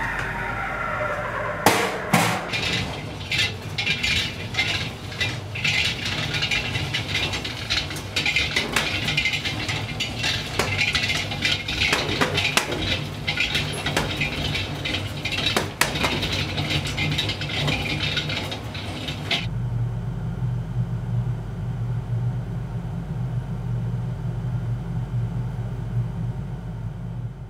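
Cremulator drum turning, its steel ball bearings tumbling and clattering as they grind cremated bone remains into grit, in a dense irregular rattle over a low hum. The clatter cuts off sharply about 19 seconds in, leaving only the steady low hum.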